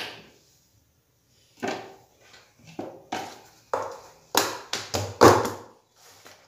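Square metal baking tin filled with cake batter knocked against the counter about ten times: sharp knocks with a brief ring, coming faster and louder toward the end.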